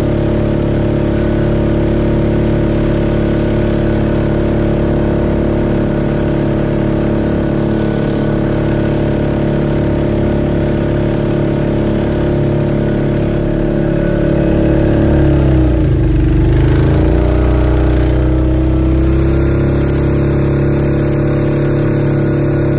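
Mokai jet-propelled kayak's small gasoline engine running steadily at speed, with the rush of water and spray along the hull. About two-thirds of the way through, the engine note dips briefly and comes back up.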